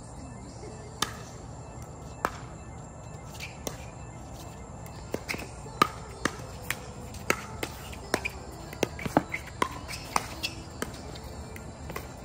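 Pickleball rally: sharp pops of the hard plastic ball off the paddles and the court. Two single pops about a second apart come first, for the serve and return, then a quick string of a dozen or so pops as the players exchange shots at the net.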